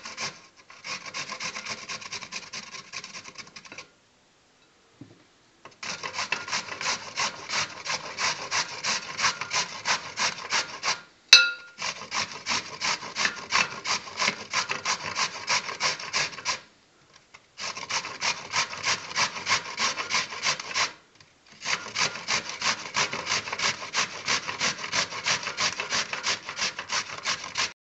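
Raw pumpkin being grated on a metal box grater: rhythmic rasping strokes, about three a second, in several runs with short pauses between them. About eleven seconds in there is a single sharp clink with a brief ring.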